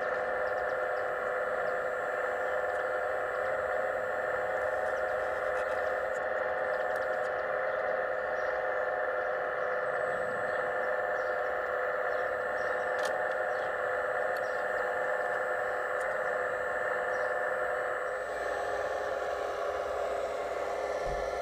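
Steady whine of a radio-controlled model excavator's hydraulic pump running as the boom lifts and swings a chained container. The tone shifts slightly near the end.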